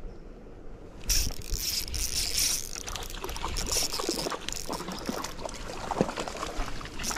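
Spinning reel being cranked, a busy run of clicks, with a hooked fish splashing at the surface. It starts suddenly about a second in.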